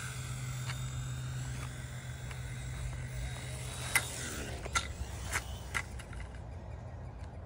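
Small E129 RC helicopter's electric motor and rotor whining steadily, fading away over the second half, with four sharp clicks about halfway through.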